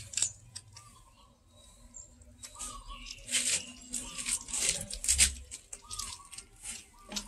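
A cat chewing raw fish: irregular wet clicks and smacks of its jaws and teeth, busiest in the middle.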